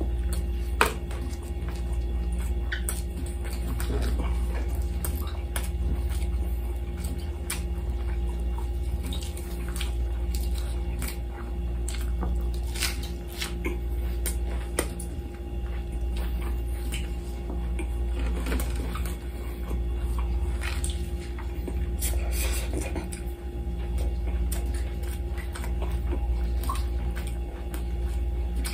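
Close-up eating sounds: chewing and mouth clicks, with small clicks and rustles of gloved hands tearing grilled lamb chops on a glass plate. A steady low hum sits under it all.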